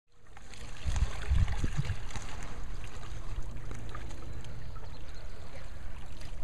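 Water trickling and splashing around a stand-up paddleboard as its paddle strokes through the water, fading in from silence at the start, with a low rumble strongest between one and two seconds in.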